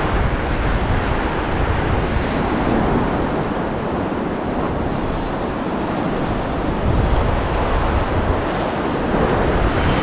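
Fast river rapids rushing steadily, with wind rumbling on the microphone.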